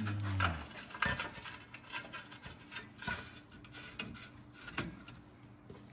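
Steel 17 mm bolts and the metal bracket clinking and scraping as the bolts are threaded in by hand, in small irregular clicks. A brief low hum sounds at the very start.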